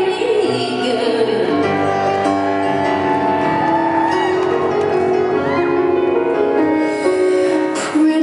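Live concert music: a grand piano played with string accompaniment, heard from the audience in a large hall, with a sharp accent near the end.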